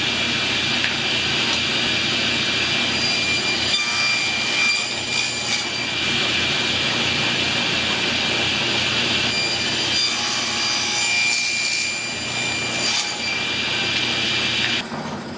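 Homemade table saw running with a steady whine. Three stretches of louder hiss come as the blade cuts wood through the crosscut sled. Just before the end it is switched off and the sound drops away as it winds down.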